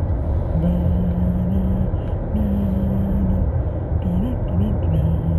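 Car cabin rumble from the road and engine while driving. Over it a man hums a few low held notes that bend up and down about four seconds in.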